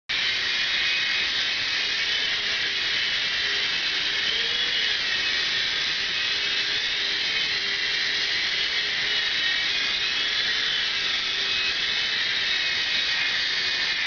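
Small three-channel coaxial infrared toy helicopter in flight: a steady high whine from its electric motors and spinning rotors, its pitch wavering slightly up and down.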